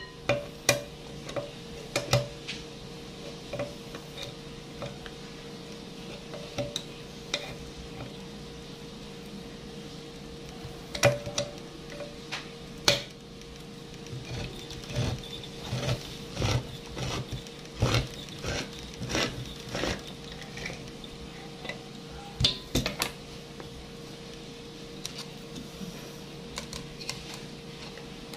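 Hand-held manual can opener cutting into the lid of a tin can: a run of sharp metal clicks and crunches as the blade is worked around the rim, coming in a quicker, regular series around the middle, with a faint steady hum underneath.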